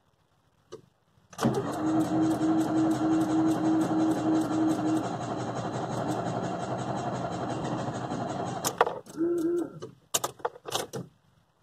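Ford Fiesta's starter motor cranking the engine for about seven seconds with a fast, even pulse, the engine slow to catch, then a few short sounds after the cranking stops. The hard start is the one that the owner blames on a faulty coolant temperature sensor reading warmer than the engine really is.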